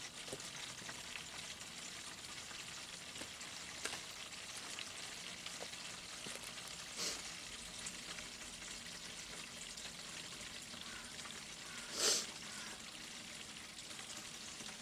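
Engine coolant from a Caterpillar 3412 running out through a hose into a container in a steady trickling stream. A few light knocks come through it, the loudest about twelve seconds in.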